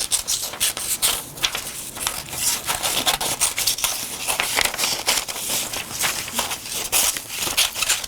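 Paper scissors snipping through a sheet of photocopy paper, a dense run of quick cuts with the paper rustling and crinkling as it is handled.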